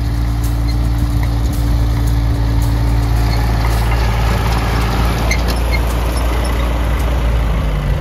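John Deere 750 compact tractor's three-cylinder diesel engine running steadily under load, with its rotary cutter mower hitched behind.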